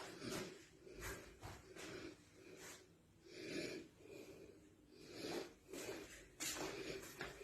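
Faint breathing close to the microphone, with soft scattered knocks of handling and movement.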